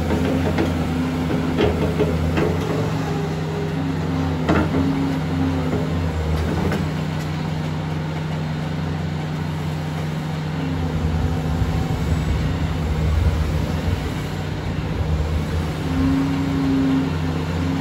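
Caterpillar 330D2 hydraulic excavator's diesel engine running under load while it digs and lifts soil, with a hydraulic whine that comes and goes as the boom and bucket move. A few knocks of earth and stones against the bucket come in the first seven seconds.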